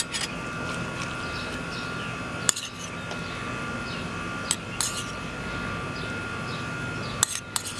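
Metal spoon clinking and scraping against a bowl as a chopped tomato mixture is scooped out, in a handful of sharp clinks with a cluster near the end, over a steady mechanical hum.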